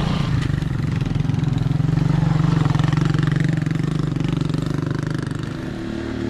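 A motor vehicle's engine running steadily close by, a little louder in the middle and easing off near the end.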